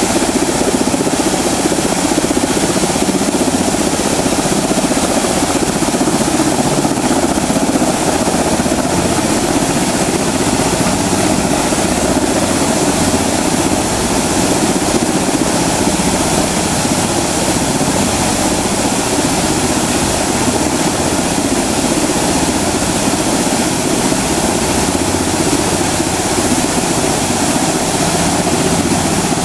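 Steady rush of water from a large fountain's many jets splashing down, with a helicopter's engine and rotor running overhead.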